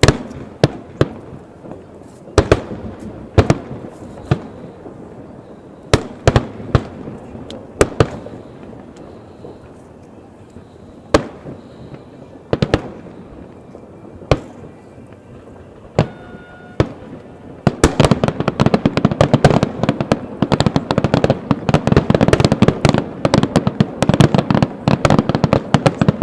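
Aerial fireworks bursting: scattered single booms, each trailing off in an echo. About two-thirds of the way in they give way to a dense, rapid crackling barrage that keeps going.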